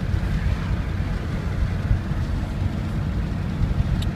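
Steady low road-and-engine rumble inside a moving car's cabin, with one light click near the end.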